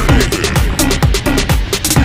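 Background music with a steady kick-drum beat.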